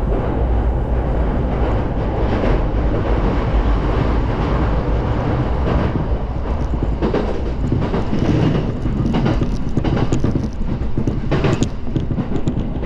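Electric commuter train running with a steady low rumble, and a string of sharp clicks from the wheels over rail joints in the second half.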